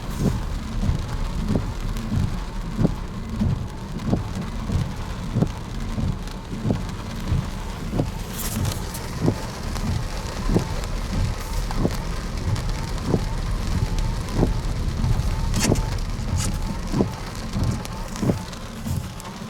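Footsteps of a person walking at an even pace, about three steps every two seconds, over a steady low rumble.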